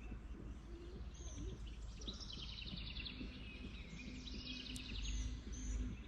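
A songbird singing two runs of rapid repeated chirping notes, about two and three and a half seconds in, over a steady low outdoor rumble that swells near the end.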